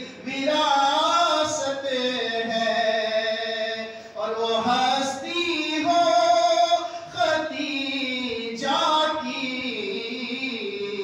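A man singing a devotional manqabat solo and unaccompanied into a microphone. He holds long, wavering notes in phrases of a few seconds, with short breaks between them.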